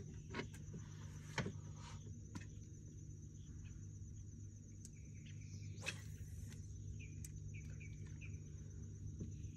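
Steady high-pitched insect buzz, with a few short bird chirps in the middle and over a low steady hum; scattered faint clicks.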